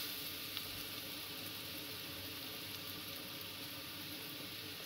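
Sliced courgette sizzling steadily as it fries in oil in a nonstick frying pan, left to brown, with a silicone spatula now and then stirring it in the pan.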